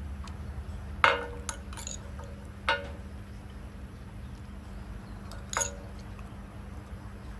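Metal spoon clinking against a ceramic bowl while scooping yogurt: three sharp clinks with a brief ring, about a second in, near three seconds and near six seconds, with lighter taps between.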